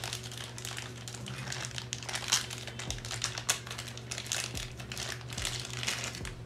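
Thin clear plastic bag crinkling and crackling as hands unwrap a USB extension cable, with sharper crackles a little past two seconds and at about three and a half seconds.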